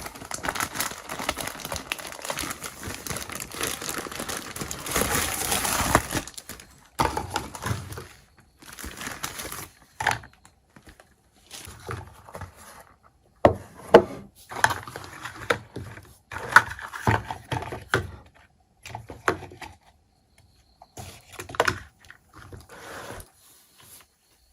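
Plastic packaging crinkling and tearing for about six seconds, then scattered clicks and taps as small miniature toy kitchen pieces are unpacked and handled.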